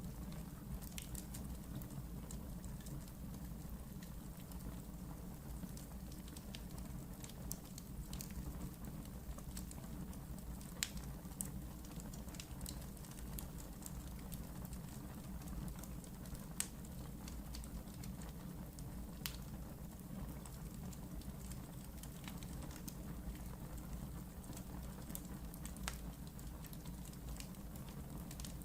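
Wood fire burning in a fireplace: a steady low rush of flames with scattered sharp crackles and pops, a few louder pops standing out.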